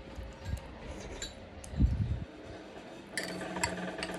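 A metal spoon clinking lightly against a drinking glass several times while scooping dessert, with a dull thump near the middle and a steady hum coming in about three seconds in.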